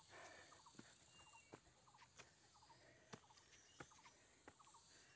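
Faint footsteps on a dirt trail, about one every 0.7 s, under a faint bird call of quick clicking notes repeated over and over.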